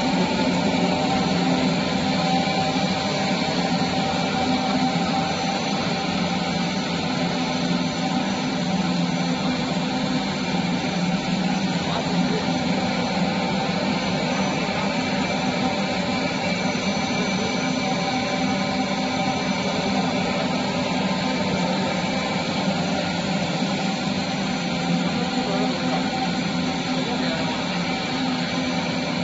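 Wet-type wire drawing machine running: a steady machine drone with several constant pitched tones, low and high.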